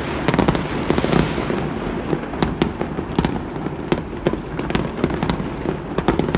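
Aerial fireworks going off in a dense, continuous barrage: many sharp cracks and pops in quick, irregular succession over a steady rumble of booms.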